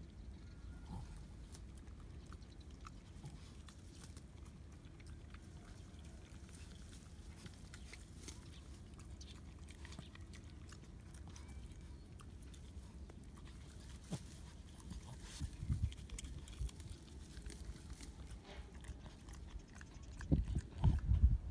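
Boston terrier tearing and chewing grass, with faint crunching clicks. There are a few louder low bumps partway through and near the end.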